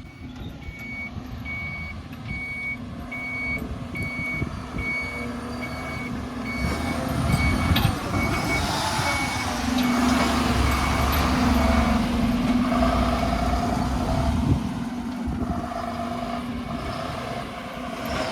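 Reversing alarm on a heavy diesel vehicle beeping evenly over its running engine. The beeps stop about a third of the way in, and the engine then works harder and louder for several seconds before easing off.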